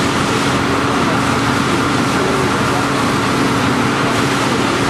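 An engine running steadily, with a constant hum over an even rushing noise.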